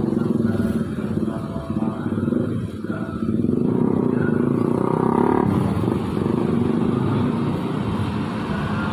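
Engines of a slow-moving queue of cars running and rolling past at close range, a dense steady rumble.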